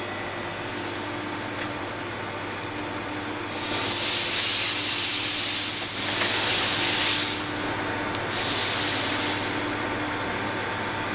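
Milling machine running with a steady hum, broken by three loud bursts of hissing of one to two seconds each, the first about three and a half seconds in.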